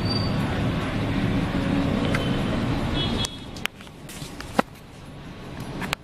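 Ceiling fan wobbling hard on lengthened downrods, a loud rattling rumble with thin metallic squeaks. About three seconds in the noise drops away sharply, leaving a softer hiss with a few sharp clicks.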